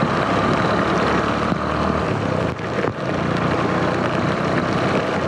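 Motorcycle engine running steadily under way in heavy rain, with wind and rain noise on the camera, and a few brief ticks from raindrops striking it.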